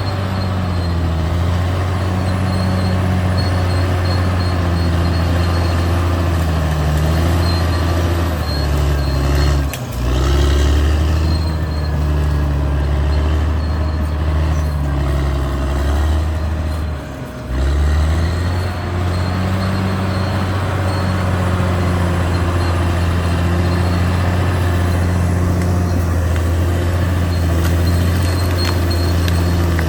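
Caterpillar D6R XL bulldozer's diesel engine running steadily as the machine works, its note rising and falling a little. Two brief dips in level come about ten and seventeen seconds in.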